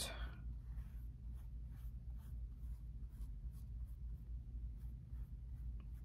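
Faint, regular swishing of a flat paintbrush stroking acrylic paint onto a wooden cutout, repeated strokes about two to three a second.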